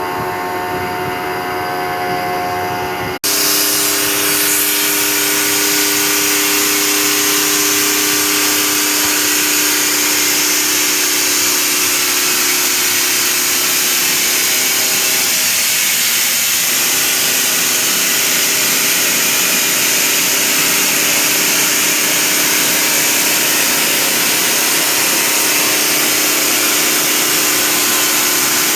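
CNC milling machine running, a steady loud hiss with a constant hum of tones. About three seconds in, a different machine sound cuts off abruptly and this one takes over. Its tone briefly drops out and returns about halfway through.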